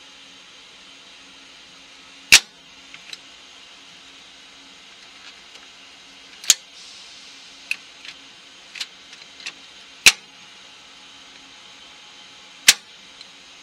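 Three-phase power cabinet's rotary disconnect switch and red emergency-stop button being operated: four loud, sharp clacks of switching, with lighter clicks in between, over a faint steady hum.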